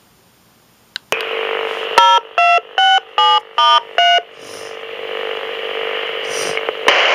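Fire-dispatch radio channel heard through a scanner: the transmission opens with a click and steady static hiss, then six short two-pitch paging tones beep in quick succession, each at a different pitch, to alert the fire department before the dispatch. The hiss carries on after the tones.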